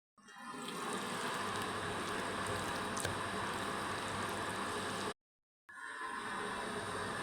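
Fish roe pakoras frying in hot oil: a steady sizzle, cut off abruptly for about half a second a little after five seconds in.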